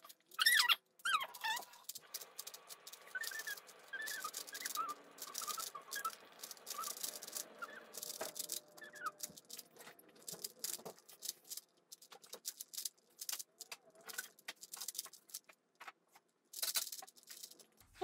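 Plastic 3x3 Rubik's cube being turned fast by hand: a quick, irregular stream of clicking and clacking layer turns. Faint high squeaks come and go in the first half.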